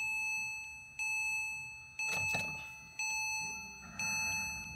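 Porsche 997 911 Carrera's warning chime sounding about once a second, each chime striking sharply and fading before the next, with a couple of faint clicks about two seconds in.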